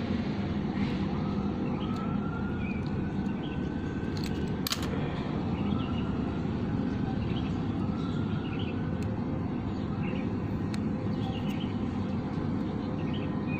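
Steady low background rumble with a faint wail that rises and levels off twice, like a distant siren, and one sharp click about halfway through.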